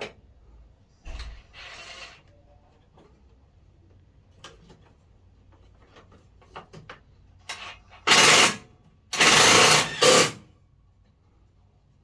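Work sounds from servicing an air conditioner: scattered clicks and knocks, then two loud hissing bursts of about half a second and one second, a moment apart, near the end.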